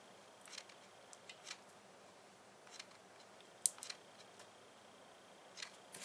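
Faint, scattered small clicks and taps from working a mini hot glue gun and handling a small hard plastic cup while gluing a wire in place; the sharpest click comes a little past halfway.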